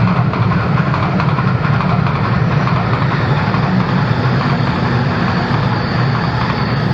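A train passing through the station without stopping, a loud, steady rumble of wheels on rail.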